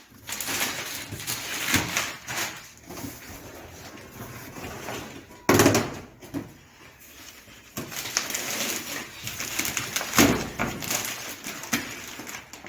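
Knocks, taps and scraping of a table being assembled, its legs being fitted on. There are scattered light handling sounds, with a few sharper knocks, the loudest near the middle.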